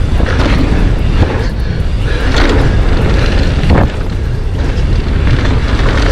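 Wind rumble on the microphone mixed with tyre noise from a Fezzari Delano Peak mountain bike rolling fast over a dirt trail, with a few sharp knocks and rattles from the bike.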